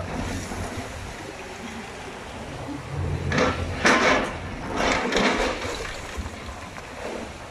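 High-reach demolition excavator breaking concrete off an apartment block with its hydraulic jaws, with chunks of concrete crashing down in two bursts about three and five seconds in, over a steady low rumble.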